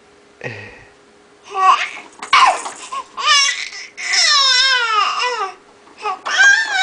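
Baby laughing in a run of high-pitched squeals and shrieks, several short bursts and one long falling squeal about four seconds in.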